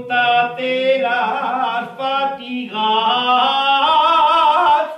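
A man singing an Aragonese jota solo and unaccompanied, in long held notes with a wavering vibrato. The line breaks off briefly about two seconds in, and the phrase ends right at the close.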